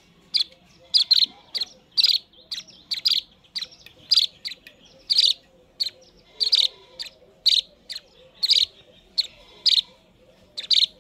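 Two hand-fed fledgling birds chirping: short, sharp, high chirps, about two a second, some doubled, the begging calls of chicks being fed with tweezers.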